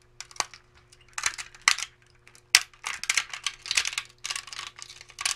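Support material being pried and snapped off a freshly 3D-printed PLA part: a run of irregular crackles and sharp clicks, with a faint steady hum underneath.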